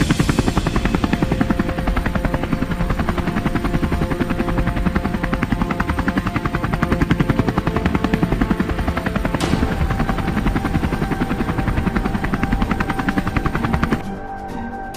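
Helicopter rotor beating steadily from a large transport helicopter hovering low and setting down, with background music underneath. The rotor sound cuts off suddenly near the end, leaving only the music.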